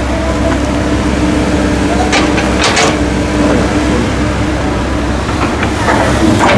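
Komatsu PC130 hydraulic excavator running hard, its diesel engine and hydraulics giving a steady whine as the boom swings and the bucket dumps and digs. A few short knocks and scrapes of bucket and soil come about two to three seconds in and again near the end.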